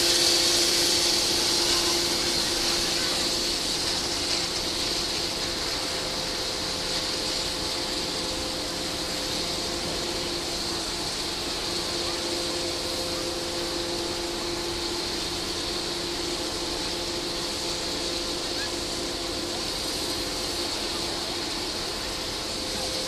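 Steady machine noise: a constant high hiss with a low, even hum underneath, from ski-field machinery running without a break.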